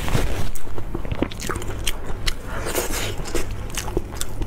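Close-miked eating sounds: chewing and tearing apart braised sheep head meat with plastic-gloved hands. These come as a steady run of short wet clicks and crackles over a low steady hum.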